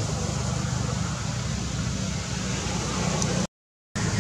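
Steady outdoor background noise with a low rumble and no clear single source. It drops out to silence for about half a second around three and a half seconds in, then resumes.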